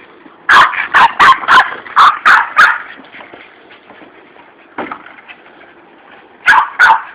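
Boston terrier barking in quick runs: about eight sharp barks in the first three seconds, a single bark near the middle, then another fast run near the end.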